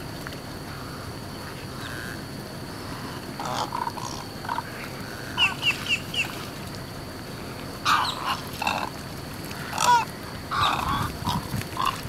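Wading birds calling: scattered short grunts and croaks, with a quick run of four high chirps about five and a half seconds in and louder calls in the second half.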